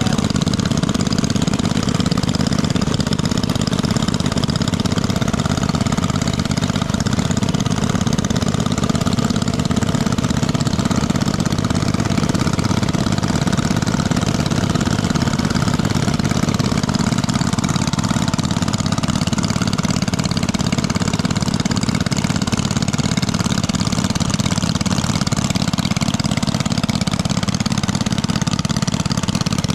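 A small engine running steadily at idle, with an even drone and no change in speed.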